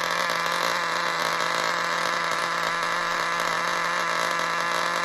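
HPI NitroStar nitro RC engine running flat out at a steady high-pitched buzz with no load, its clutch blown off. It is a runaway that a rag over the exhaust does not stop.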